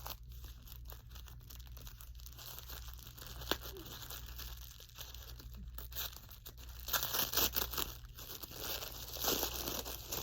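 Packaging being crinkled and torn open by hand, in irregular crackles that grow louder and busier near the end.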